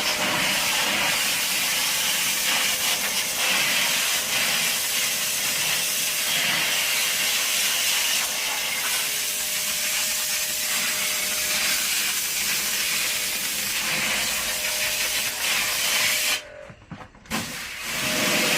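Water jet spraying with a steady hiss. It cuts out for about a second near the end, then starts again.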